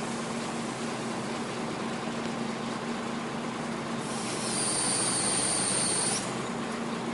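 Hydraulic loader crane with a rotating grab, with a steady engine and hydraulic hum. About four seconds in, a loud high squeal starts and holds for about two seconds, then stops abruptly as the grab moves over the chip bin.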